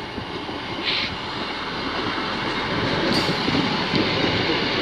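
Class 158 diesel multiple unit passing close by, a steady rumble of its diesel engines and wheels on the rails that grows slightly louder as it goes by, with two brief higher hisses about one and three seconds in.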